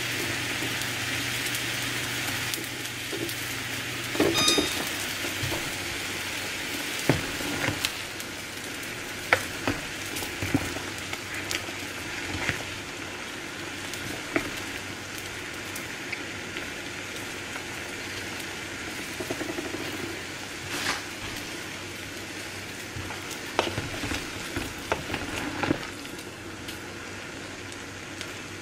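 Soup boiling in a stainless steel stockpot, a steady bubbling hiss, with a spoon stirring and knocking against the pot in scattered clinks and taps.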